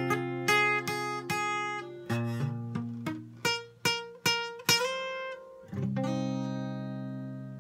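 Acoustic guitar played solo: a run of strummed and picked chords, then a final chord struck near the end that is left to ring and slowly fades.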